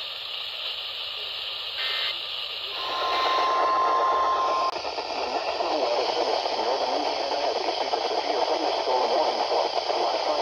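Weather radio receiver hissing with static, with a brief burst of tones about two seconds in. A steady alert tone near 1 kHz follows for about two seconds, then the signal turns to loud, rough static with a garbled voice buried in it.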